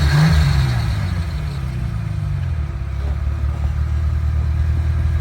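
Off-road vehicle's engine revving, its pitch rising and falling in the first half-second, then running at steady low revs as the vehicle crawls over rough ground.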